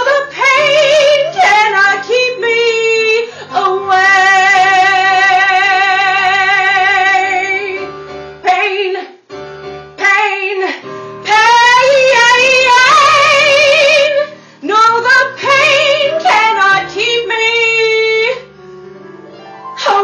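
A woman singing solo, holding long notes with a wide vibrato, with a short break about nine seconds in and a quieter stretch near the end.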